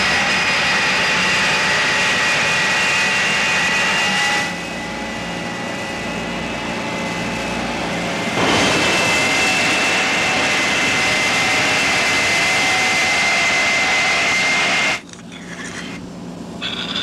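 Dental drill running with a steady high whine over a hiss during a tooth extraction. It runs for about four seconds, eases off for a few seconds, then runs again for several seconds and stops sharply near the end.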